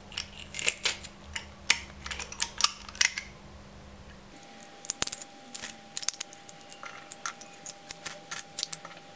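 Stainless steel garlic press worked by hand, its hinged metal handles and hopper clicking and clacking in quick irregular strokes as garlic cloves are squeezed through.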